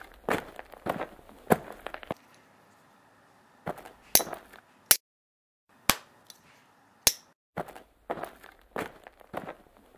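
Fight sound effects of hard sticks clashing: quick clusters of sharp clacks and clinks that cut off abruptly several times, with two brighter ringing clinks about four and seven seconds in.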